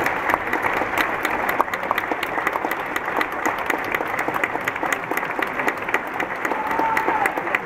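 Audience applauding steadily, many claps blending into a continuous sound.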